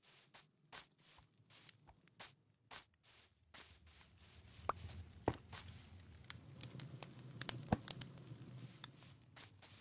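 Faint, irregular run of short scratchy rustles, a couple each second, with a few sharp clicks in the middle.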